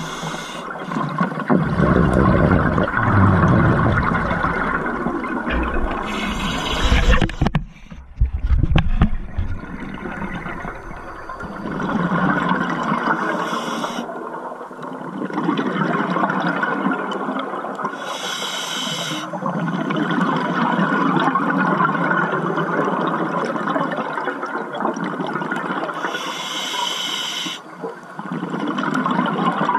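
Scuba breathing heard underwater: long stretches of exhaled bubbles gurgling out of a regulator, broken three times by a short hiss of inhalation through it. There is a heavy rumble of water movement in the first third.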